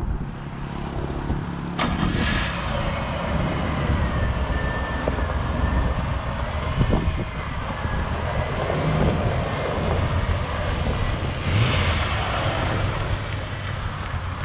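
1994 Chevrolet 3500HD truck's engine idling steadily, with wind buffeting the microphone in gusts about two seconds in and again around twelve seconds.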